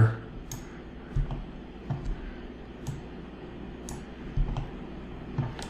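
Computer mouse clicking: several separate short clicks, some with a soft low thump, as vertices are picked and dragged in the modelling software.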